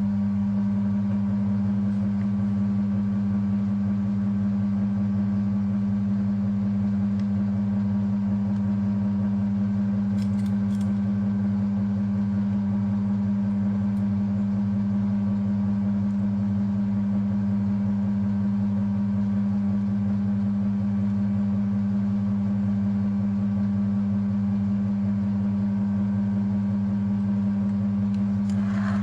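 Cincinnati milling machine running steadily with a constant hum, taking a slow auto-fed boring cut with a boring head and boring bar in a cast-iron lathe apron. A faint click comes about ten seconds in and another near the end.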